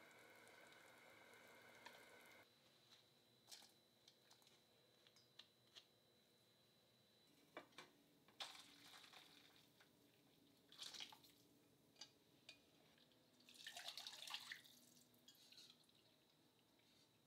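Faint kitchen sounds from stainless steel pans. A pot simmers on the gas burner for about the first two seconds, then stops. After that come light metal clinks and short pours and splashes of liquid as the beef cooking liquid is poured between pans, with the fullest pour a little past the middle.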